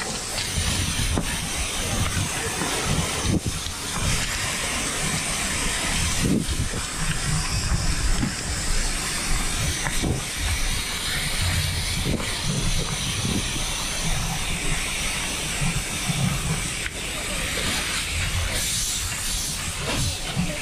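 High-pressure fire hose nozzle (SRKU-2VD3, fed from a high-pressure reel) spraying a jet of water onto burning rubbish, a steady hissing rush as the water turns to steam, with a low rumble underneath.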